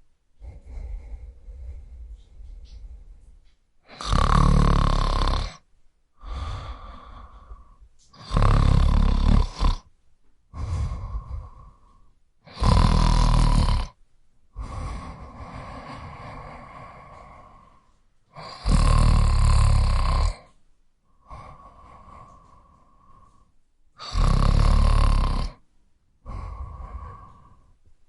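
A person snoring: five loud rasping snores, each about a second and a half long, come every four to six seconds, with quieter breaths between them.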